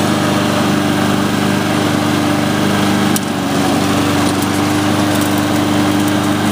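Honda overhead-cam engine of a Husqvarna LC221A all-wheel-drive walk-behind mower running steadily and smoothly while the self-propel drive pulls the mower forward, with a brief dip about three seconds in.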